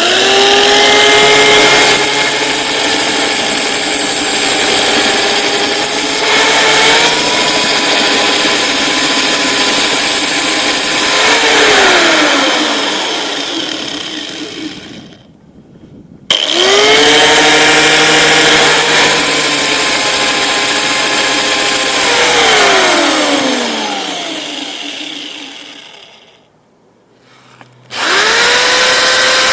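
Electric power tool motor spinning up to speed, running with a steady whine, then winding down with falling pitch as it coasts to a stop; this happens twice and then starts a third time near the end.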